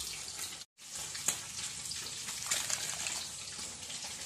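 Pot of water at a rolling boil with rice parboiling in it, bubbling and popping steadily. The sound cuts out for a moment about two-thirds of a second in.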